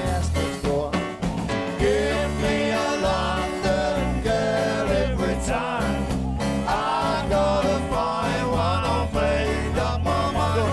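Live band music: electric bass, Yamaha CP stage piano and drums playing an upbeat rock-and-roll number.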